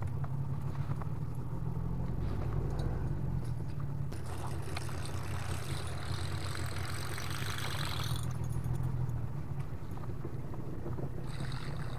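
Small boat engine idling steadily as a low hum. A high hiss joins in from about four to eight seconds.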